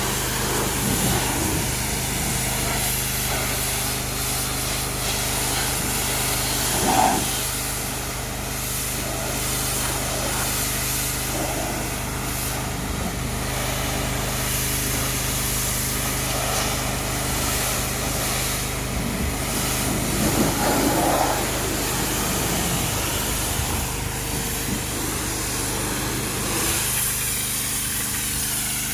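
Pressure washer running with a steady hum while its jet hisses against a truck's body, with two brief louder surges of spray.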